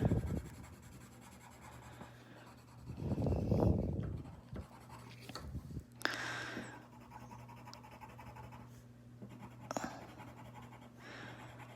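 Marker nib scratching on paper in soft, scattered strokes as a drawing is coloured in, over a faint steady low hum.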